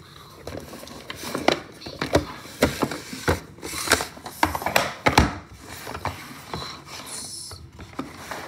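Hard plastic carry case with fold-out trays being handled and opened by hand: irregular clicks and knocks of plastic on plastic as the lid and trays are worked.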